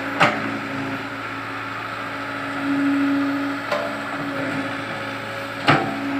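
Crawler excavator's diesel engine running steadily as it works its bucket in soil. A pitched hum swells for about a second near the middle, and three sharp knocks come through, one just after the start, one past halfway and one near the end.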